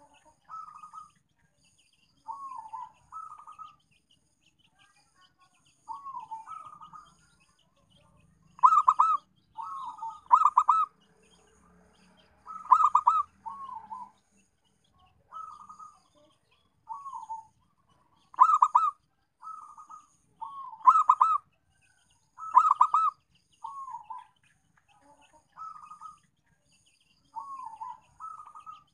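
Zebra dove cooing: a string of short, rapidly pulsed coos, one every second or two, some much louder than others.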